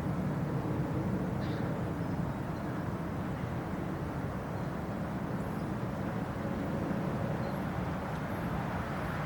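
Steady low rumble of distant traffic, with a few faint high chirps.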